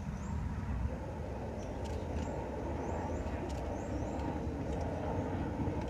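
Steady low outdoor background rumble, with a few faint, short, rising high chirps scattered over it.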